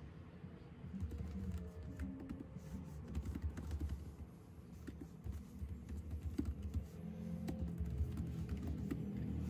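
Steady typing on a Logitech K380 for Mac scissor-switch keyboard fitted with a thick clear keyboard cover: a fast, continuous stream of key taps.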